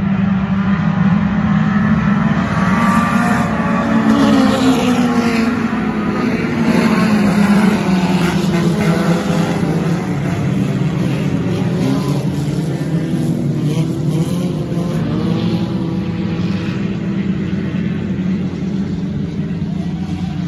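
Several sport compact race cars' four-cylinder engines running hard together as a pack. Their pitches rise and fall as the cars accelerate and back off.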